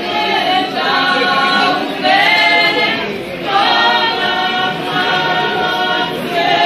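A group of women singing a Posavina folk song together, holding long notes in phrases of a second or two with short breaths between them.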